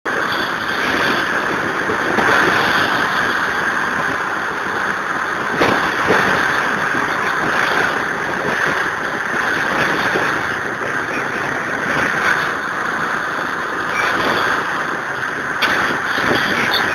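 Steady rush of wind and road noise on the microphone while moving along a road in traffic, with two brief knocks, one about six seconds in and one near the end.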